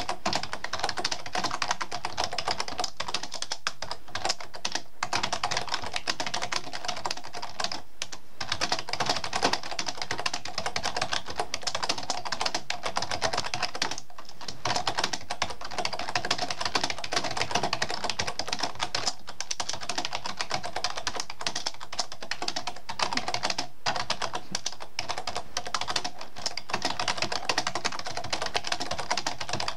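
Fast, continuous typing on a computer keyboard: dense key clicks with a few brief pauses.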